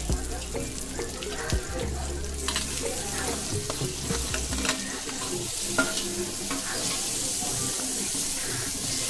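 Onion-and-spice masala sizzling in oil in a kadai as chopped tomatoes are tipped in and stirred with a steel spoon, with light clicks of spoon against pan. The sizzle grows stronger a few seconds in.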